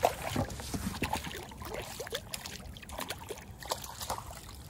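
Hooked crappie thrashing and splashing at the water's surface beside a kayak, then water sloshing and dripping as it is scooped up in a landing net. The sound is a string of irregular small splashes, the sharpest one right at the start.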